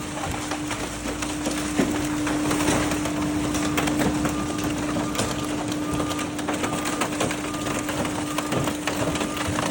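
Hydraulic car crusher flattening a car: a steady hum from the machine under a run of cracking, snapping and crunching as the body and glass give way. Short faint high tones come and go in the second half.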